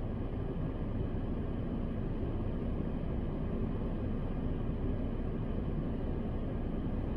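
Steady low rumble inside a parked car's cabin, as from the car running.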